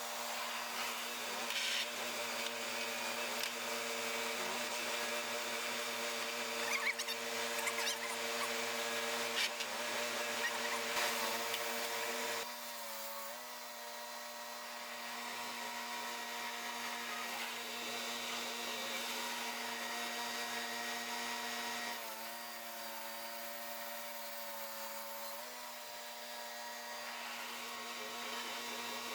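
Sawmill running through a mesquite log: a steady machine hum with a hiss of cutting over it. About twelve seconds in, the cutting noise drops away and the pitch dips slightly, with small shifts in the hum later on.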